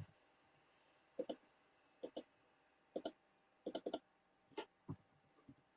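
Sharp clicks from operating a computer, about a dozen over several seconds, mostly in quick pairs with a short cluster in the middle, over faint room tone.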